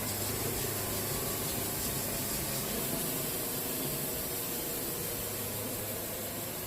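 Wood-Mizer portable band sawmill running steadily: a low engine hum under an even hiss from the band blade sawing through a red cedar log.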